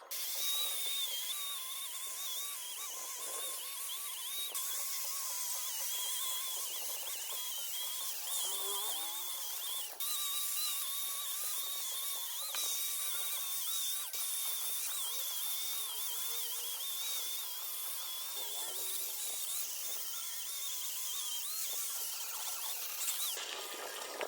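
High-pitched whine of a small power tool running steadily, its pitch wavering slightly as the load changes.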